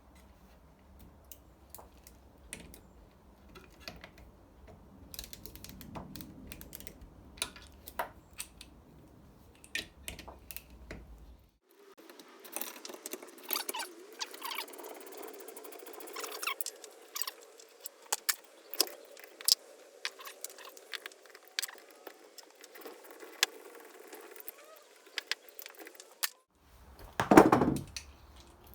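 Scattered metallic clicks and clinks of hand tools taking a heavy-duty transformer apart, with a louder clatter near the end.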